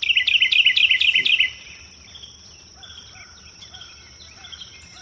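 A songbird singing: a loud, rapid phrase of repeated down-slurred notes lasting about a second and a half, then softer scattered calls from other birds, over a steady high-pitched insect drone.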